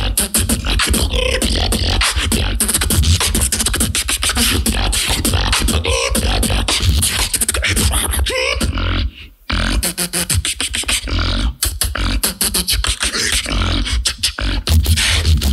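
Live solo beatboxing in a battle round: a dense, fast rhythm of vocal percussion with deep bass, broken by a brief pause about nine seconds in.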